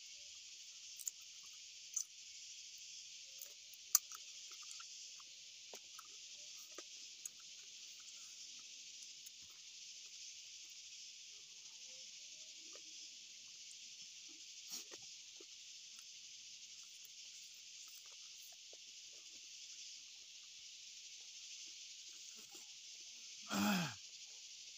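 A steady high insect chorus buzzing without a break, with scattered soft clicks and ticks of food being eaten and handled by hand. Near the end one brief, louder sound drops steeply in pitch.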